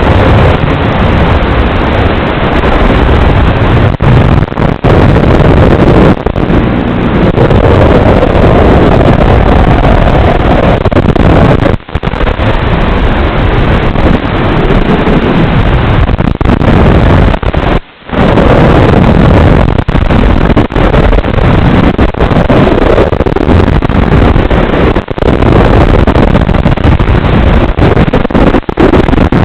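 Emax Hawk 5 FPV quadcopter's motors and propellers buzzing loudly through a distorted onboard recording, with heavy wind noise. The pitch rises and falls as the throttle changes, and the sound briefly cuts out twice, near the middle and about two-thirds of the way through.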